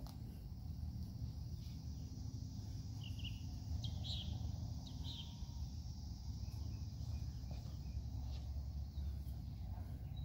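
Outdoor ambience: a steady high insect drone, with a few short bird chirps about three to five seconds in, over a constant low rumble.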